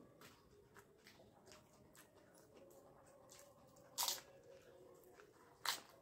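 Two people biting and chewing dahi puchka, crisp hollow fried shells filled with yogurt: soft wet chewing with small clicks, and two sharp crunches, one about four seconds in and another near the end.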